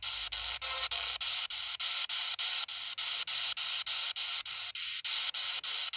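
Spirit box sweeping through radio stations: a steady hiss of static cut into short pieces about five times a second as it scans.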